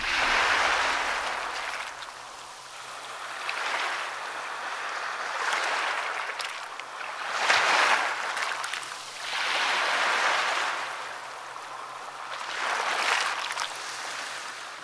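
Small waves breaking and washing up on a shore, swelling and falling back about six times, with the loudest wash about halfway through.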